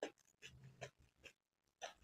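Faint, irregular crisp crackles and clicks of hollow fried puri shells being handled as fingers pick through the pile, with a brief low hum a little before the middle.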